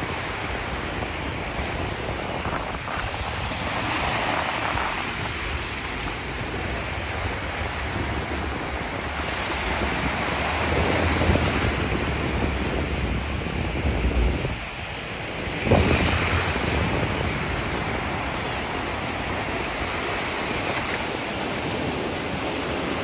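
Gulf of Mexico surf breaking and washing up the beach in a steady rush, with wind buffeting the phone's microphone.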